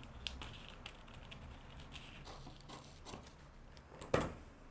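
Scissors snipping through pattern paper in short, scattered cuts, with light paper rustling, and a louder thump about four seconds in as the paper and scissors are handled.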